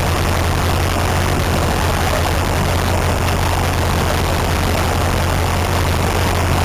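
A heavy engine, likely a tractor's, running steadily at low revs with a constant low hum.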